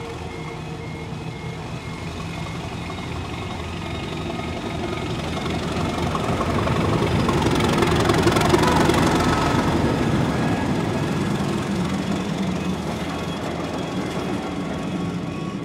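A steam train passing: the rumble and rush of the locomotive and its carriages build to their loudest a little past halfway, then fade away.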